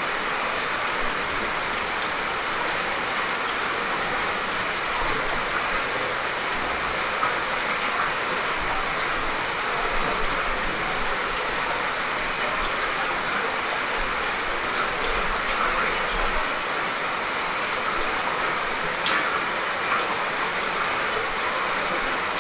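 Light, steady rain falling: an even hiss with scattered faint ticks of drops.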